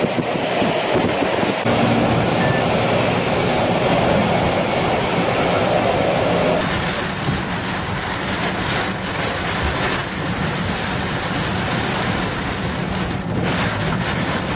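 Hurricane wind and driving rain, a loud steady rush with wind buffeting the microphone. About six and a half seconds in the sound shifts, losing some of its lower rumble and turning hissier.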